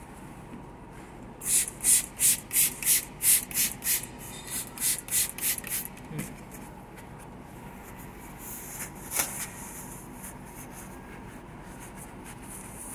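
A kitchen surface being wiped briskly by hand: about a dozen quick rubbing strokes, roughly three a second. Then come a few fainter rubs and a single knock.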